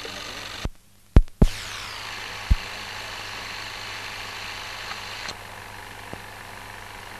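Steady hiss and hum of an old newsreel optical soundtrack with no speech or music. Less than a second in the sound drops out briefly between loud pops, which are typical of a film splice, and another single pop follows about a second later.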